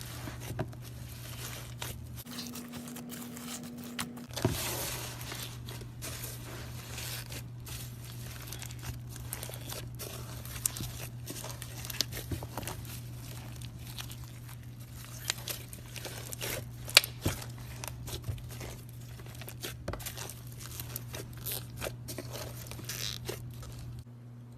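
Slime being handled by hand: a run of irregular sharp clicks and pops over a soft rustling noise.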